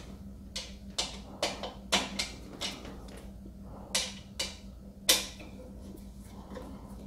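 A long-shafted screwdriver snugging the bolts on a metal quilting-frame leg: a string of sharp metallic clicks, about two a second, with a short pause near the middle. A faint steady hum runs underneath.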